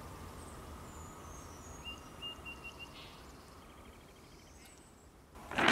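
Woodland ambience: a low, steady background with a few faint bird chirps, short repeated high notes in the first half of the clip. Near the end there is a brief, louder noise.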